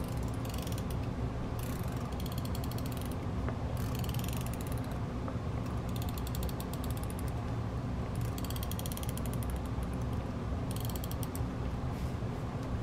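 A Tombow Mono correction tape dispenser is drawn across paper in six short strokes. Each stroke is about a second of fine, rapid ticking from the dispenser's gears.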